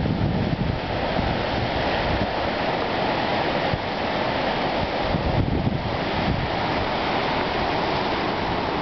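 Steady wash of sea surf breaking on a rocky shore, with wind gusting against the microphone.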